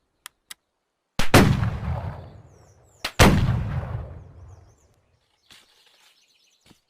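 Double-barrel flintlock shotgun fired twice, the two barrels about two seconds apart. Each shot is a loud report with a long rolling echo dying away over a second and a half, and two light clicks come just before the first shot.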